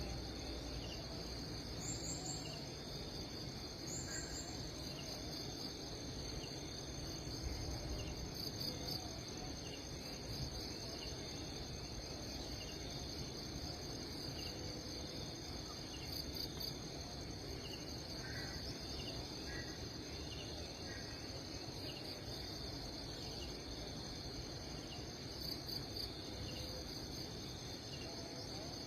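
Steady, high-pitched chorus of wild insects, with a faint pulse repeating about once a second and a few short chirps now and then.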